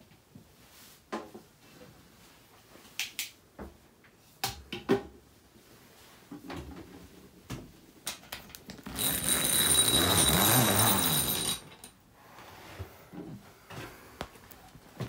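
Scattered clicks and knocks of someone moving about and handling things, then a loud harsh scraping noise of nearly three seconds with a thin high whistle in it, starting about nine seconds in.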